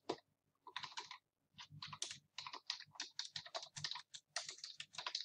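Typing on a computer keyboard: a quick, uneven run of faint key clicks.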